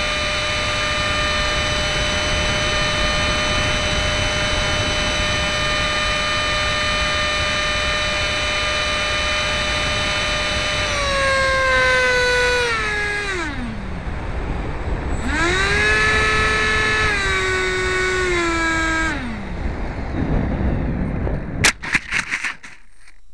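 Electric ducted fan of a model MiG-15 jet whining steadily at full power, with wind rushing over the onboard microphone. About eleven seconds in the whine slides down as the throttle is cut, rises again briefly, then winds down, and a few sharp knocks follow as the model touches down in a field.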